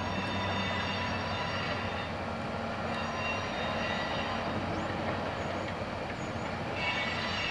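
Baldwin diesel switcher locomotive moving slowly with a loaded flatcar: a steady low engine drone under rolling rumble, with thin high squealing tones from the wheels that fade about two seconds in and return near the end.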